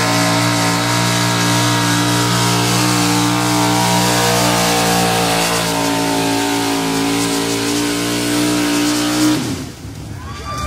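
Gas modified pulling truck's engine running flat out at high, steady revs while it drags the sled, then cut off suddenly about nine seconds in.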